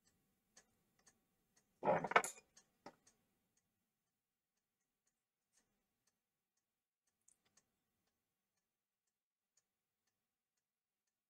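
Faint, regular ticking, about two ticks a second, thinning out after a few seconds. A brief, louder noise comes about two seconds in.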